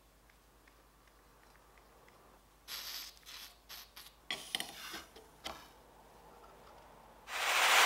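A few short clicks and scrapes as a copper pipe and its flux-coated fitting are handled and pushed together. Near the end, a gas soldering torch is lit and starts a loud, steady hiss.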